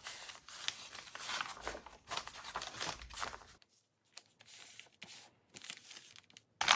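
Paper being handled and torn: a series of short rustling, tearing bursts, fainter in the second half.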